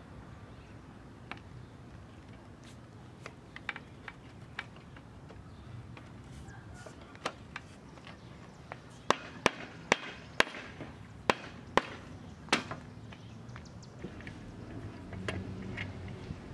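Wooden chair parts and a metal bar clamp handled during reassembly: scattered light knocks, then a quick run of about seven sharp clicks or taps, a few tenths of a second apart, a little past the middle.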